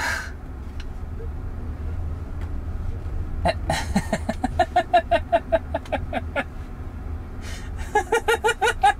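A person laughing in a quick run of short 'ha' syllables, starting about a third of the way in and again near the end, over the low, steady road rumble inside a moving car's cabin.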